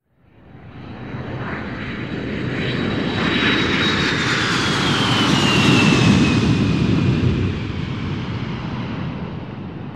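Airplane flying past: the engine noise swells in from silence, peaks about six seconds in with a high whine that falls in pitch, then fades away.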